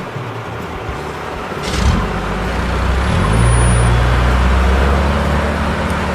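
Heavy construction-vehicle engine sound effect: a short hiss about two seconds in, then a low engine rumble that swells up and runs steadily.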